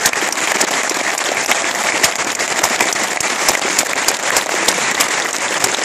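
Audience applauding, a dense steady patter of clapping with sharper individual claps from hands close by.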